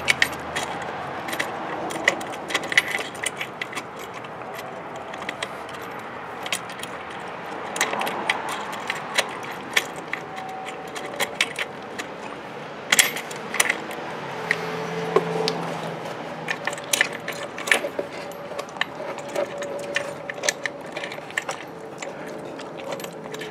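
Irregular light metallic clicks and clinks of a bolt and spacer knocking against a stainless steel exhaust bracket as they are worked into place by hand.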